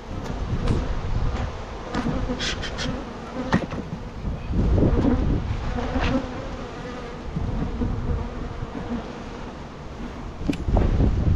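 Honey bees buzzing in a steady hum around an open hive, with a handful of sharp clicks and knocks.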